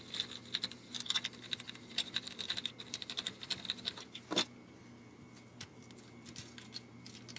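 Steel strings of a Telecaster-style guitar being unwound and pulled off the tuner posts by hand: a quick run of small metallic clicks and rattles from the tuners and loose string ends, thinning out after a sharper click about four seconds in.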